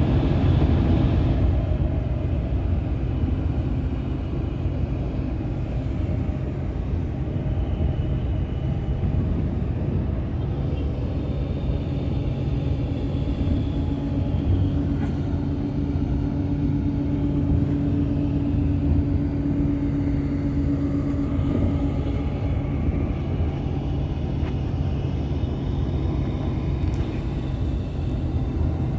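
Steady engine and road rumble of a vehicle cruising along a highway. A low engine hum grows stronger for several seconds in the middle.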